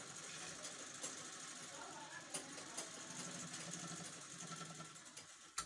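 Treadle sewing machine running steadily as it stitches cloth, a low mechanical whirr with light ticking from the mechanism. A sharp click near the end.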